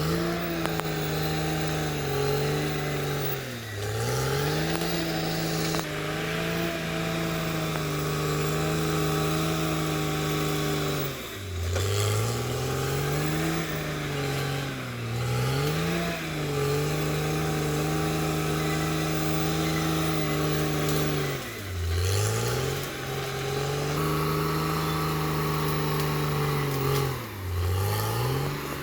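CAT D6R XL bulldozer's diesel engine running steadily. Its engine speed dips sharply and recovers several times as the load and throttle change.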